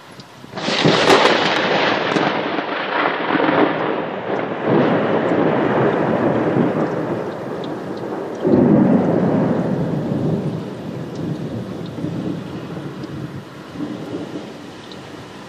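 Thunder breaks suddenly about half a second in and rumbles on. It swells again about eight seconds in, then slowly fades, with steady rain falling underneath.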